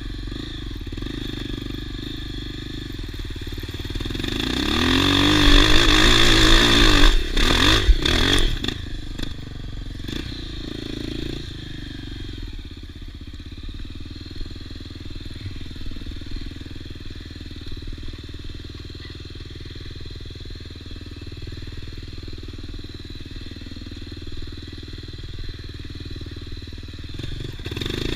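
Dirt bike engine running, rising in pitch and loudness about four seconds in to a loud peak, with a few sharp clacks, then settling back to a steady lower drone; it swells again near the end.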